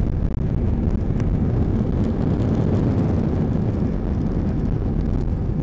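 Steady low rumble inside the cabin of an Airbus A320-214, its CFM56 engines and airflow heard from a window seat, swelling slightly midway.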